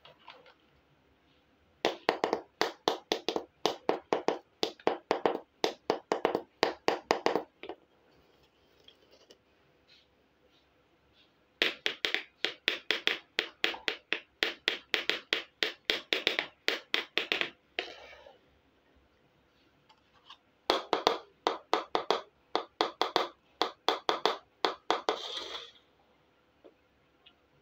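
Small plastic toy kitchenware tapped rapidly against a hard surface, a quick run of sharp clicks at about four a second. There are three such runs, each lasting five to six seconds, with short pauses between them.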